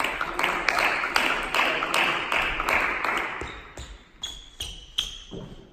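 Table tennis balls clicking as they bounce, with a dense wash of noise and clicks over the first few seconds that fades out. Near the end, single clean bounces come a couple of times a second.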